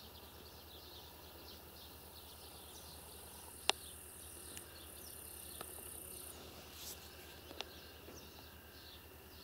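Faint, continual chirping of insects in a grassy field, with a sharp click a little under four seconds in and a few fainter ticks after it.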